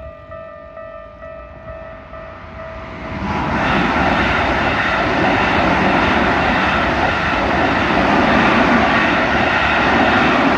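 Railway level crossing's warning bell dinging over and over. About three seconds in, a train runs through the crossing and its loud, steady wheel-and-rail noise covers the bell until the end.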